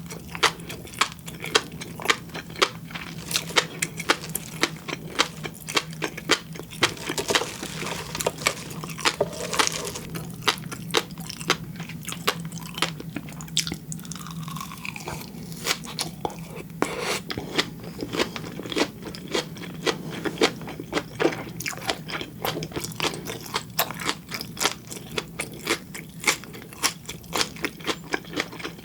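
Close-miked chewing of flying fish roe (tobiko), the eggs bursting in many sharp crackling pops a second. A faint low hum sits underneath until about halfway through.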